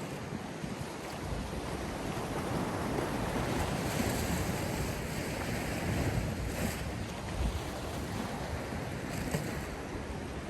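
Sea surf washing in a steady rush, with wind rumbling on the microphone.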